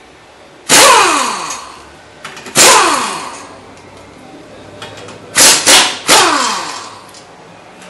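Impact wrench spinning the nuts off the bottom of a 2002 Lexus ES300's lower ball joint: five short, loud bursts, two on their own and then three in quick succession, each ending in a whine that falls as the tool spins down.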